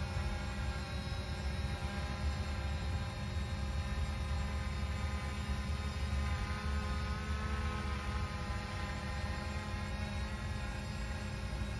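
Quadcopter drone hovering overhead: a steady, multi-toned propeller whine whose pitch shifts slightly midway, over a low rumble.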